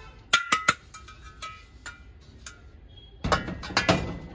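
Brass and copper kitchen vessels clinking as they are handled: three sharp metallic clinks with a brief ring about half a second in, a few lighter taps, then a longer clatter of pots knocking together near the end.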